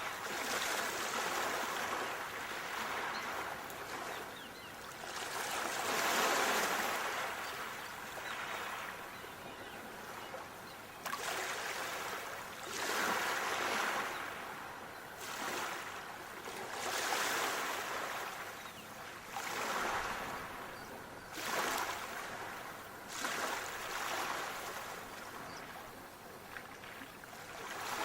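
Sea waves washing in, a surge of water noise swelling and fading every few seconds.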